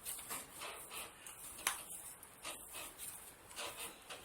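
Hands kneading proofed bread dough, soft repeated pressing and rubbing strokes, with one sharp click about one and a half seconds in.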